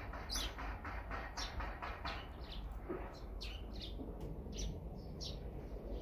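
Small songbirds chirping: a quick string of short, high chirps that drop in pitch, thickest in the first few seconds and more scattered after.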